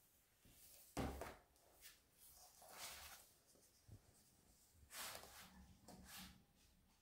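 Faint handling of a vinyl record's cardboard gatefold and paper inner sleeve by cotton-gloved hands: soft rubbing and sliding of paper, with a soft bump about a second in and several quieter swishes after it.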